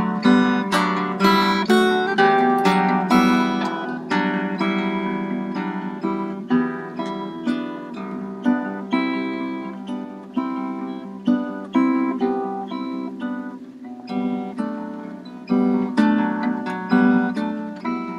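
Harp guitar played fingerstyle as a solo instrumental, with plucked melody and chord notes ringing on over one another.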